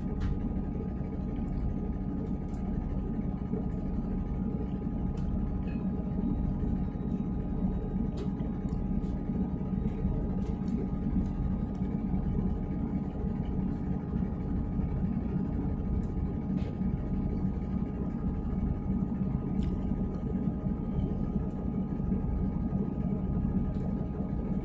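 Steady low rumble of a train running, heard from inside the carriage, with a faint steady whine over it and a few light clicks here and there.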